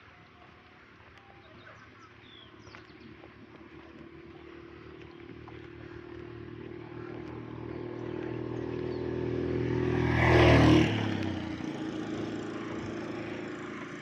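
A motor vehicle's engine approaching for about ten seconds, growing steadily louder, then passing close by about ten and a half seconds in and fading away.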